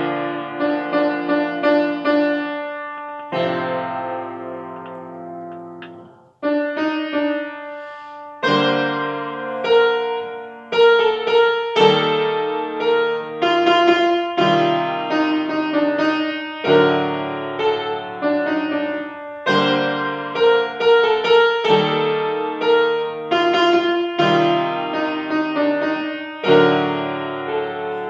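Grand piano played solo: chords and a melody, with one held chord left to die away a few seconds in, a soft passage, then fuller playing again from about eight seconds in.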